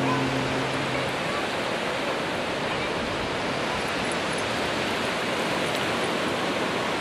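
Steady, even wash of gentle surf at the water's edge, with the last held note of background music dying away about a second in.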